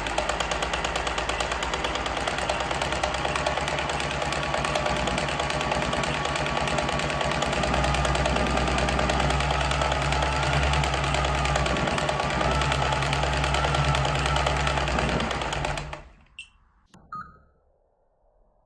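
A rapid, steady mechanical rattle that runs for about sixteen seconds and then cuts off suddenly, followed by a couple of faint clicks.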